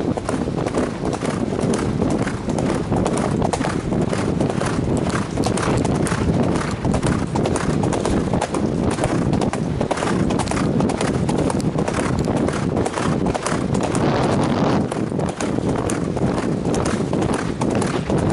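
Horse's hooves striking a gravel road in a steady, rapid run of hoofbeats, heard from the saddle.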